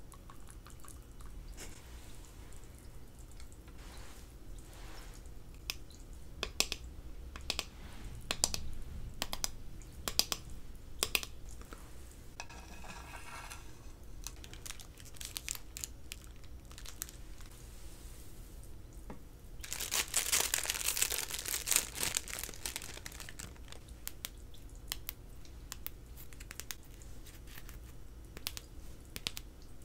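Close-miked ASMR eating sounds: chewing and mouth sounds with many scattered sharp clicks and crackles. A dense, loud crackling and crunching stretch of about three seconds comes around twenty seconds in.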